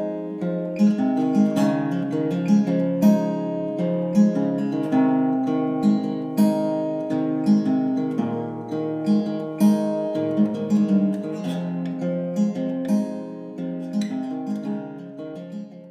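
Acoustic guitar music, plucked and strummed notes in a steady rhythm, fading out near the end.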